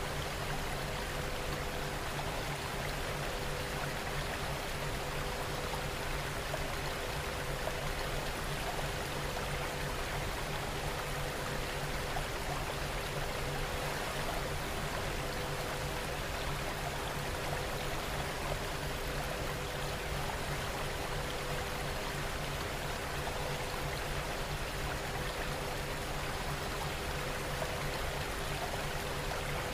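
Steady recorded rain: an even, unbroken hiss of falling rain with no change in level. Faint steady tones sit underneath.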